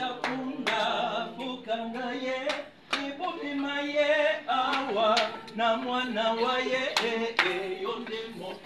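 A small choir of men and women singing together, with hand claps throughout.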